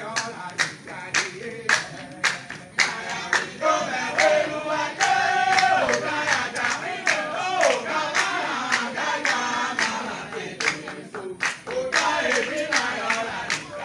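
Voices singing a chant, with steady hand clapping about twice a second; one long held note a third of the way through.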